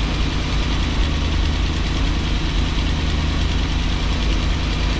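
Motorhome's carbureted gasoline engine idling steadily, heard up close through the open engine cover, on fast idle as it warms up. It has an exhaust leak that the owner says can be heard inside the coach.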